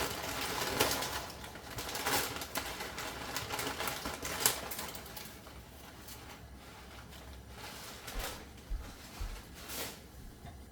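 Irregular light clicks, taps and rustles of hands handling food and kitchen utensils, busy for the first few seconds and then sparser, with a few soft knocks near the end.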